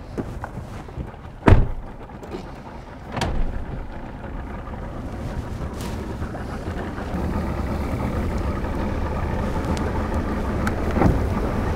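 Boat outboard motor and pickup truck idling at the water's edge while the bass boat comes off its trailer, the engine sound growing louder through the second half. Two sharp knocks in the first few seconds.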